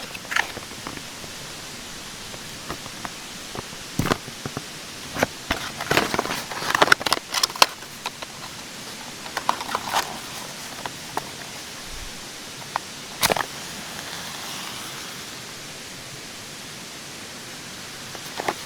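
Steady rushing of a mountain stream, with scattered clicks, knocks and rustles of someone moving about, clustered in the middle and again near the end.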